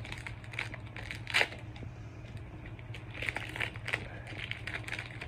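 Foil wrapper of a Pokémon trading-card booster pack crinkling and rustling as it is handled and opened, with a sharper crackle about a second and a half in.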